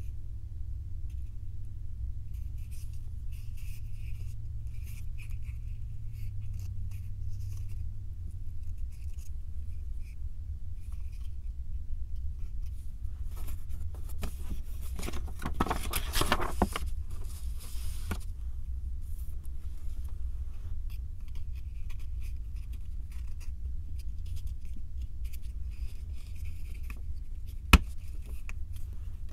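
Small 3D puzzle pieces being handled and fitted together: light scrapes and ticks, a longer stretch of rubbing and scraping about halfway through, and one sharp click near the end, over a steady low hum.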